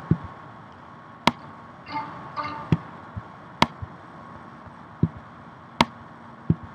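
Computer mouse clicking: a sharp click about every two seconds, with softer taps in between.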